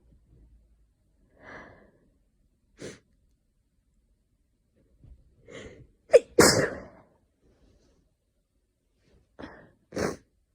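A person sneezing during a sneezing fit. There are several sharp in-breaths, then one loud sneeze about six seconds in and another shorter one near the end. The sneezer puts the fit down either to hay fever or to a coming cold.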